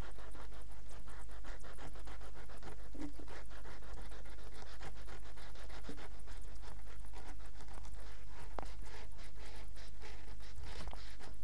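A knife sawing back and forth through an Umaibou, a brittle puffed corn stick, in a fast, even run of short strokes while cutting it into round slices.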